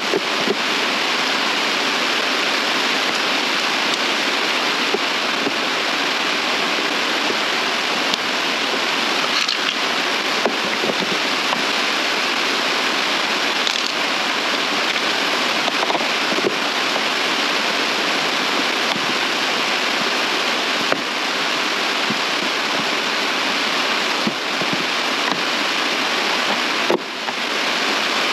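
Steady, loud rushing hiss with no rhythm or pitch, with a few faint clicks and taps of plastic parts being handled on the bench.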